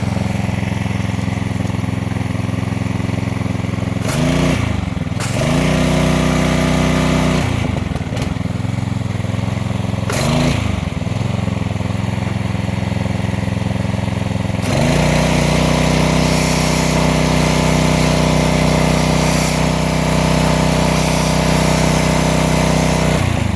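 3300 psi gas pressure washer engine running under load, its pitch dipping and recovering three times as the load changes. From about fifteen seconds in it runs louder, with a steady hiss of high-pressure water spray.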